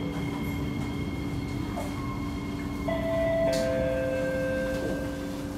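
Kawasaki C751B metro train heard from inside the car while moving along a station platform: a rumble under a steady whine from its traction motors. The whine jumps to new pitches about three seconds in and again half a second later.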